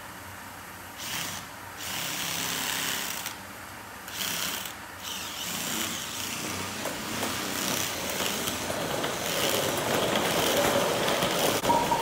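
A cordless DeWalt drill drives a soft rubber wheel against a concrete floor to spin a mechanics creeper around. It starts with a few short bursts, then runs continuously and grows louder toward the end.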